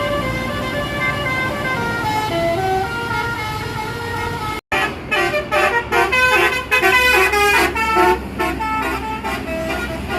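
Basuri (telolet) bus horn playing a melody in stepping notes. It breaks off for an instant about halfway, then plays a fast run of short, detached notes over the low rumble of a bus engine.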